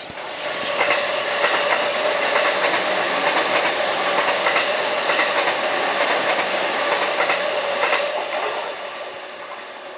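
Electric commuter train passing close by, its wheels clattering over the rail joints in repeated clicks over a steady rushing noise; it eases off near the end.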